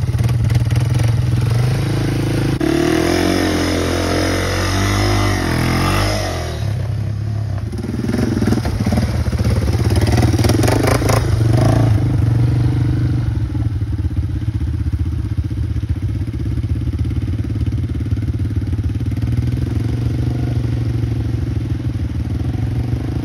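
ATV engine running, revving up and down in the first few seconds and then running steadily as the quad churns through mud.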